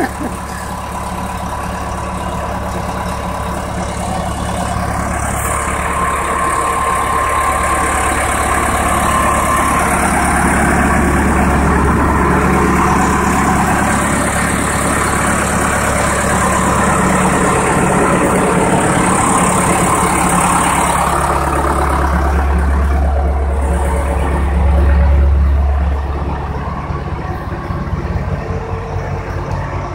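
Caterpillar D4H Series II crawler dozer's diesel engine idling steadily. It gets louder through the middle and swells briefly about twenty-five seconds in.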